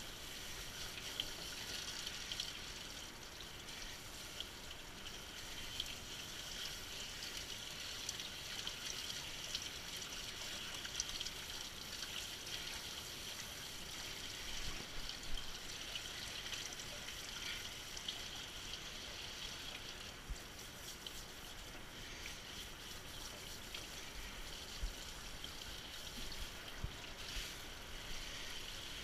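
Steady spray of water from a handheld shower sprayer rinsing a Bedlington terrier's wet coat in a grooming tub, with small irregular splashes.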